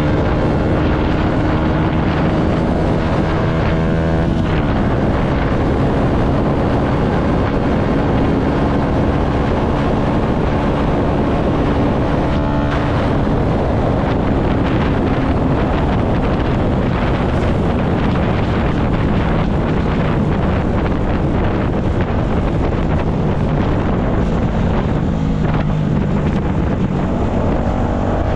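Yamaha MT-125's single-cylinder four-stroke engine running under way, its note changing pitch a few times, with heavy wind noise on the microphone.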